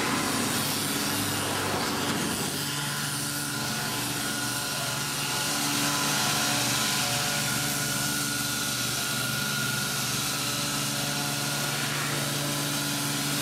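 Truck-mounted thermal fogging machine running with a steady, high-pitched buzzing drone over a wide hiss as the pickup drives by, putting out insecticide fog against mosquitoes.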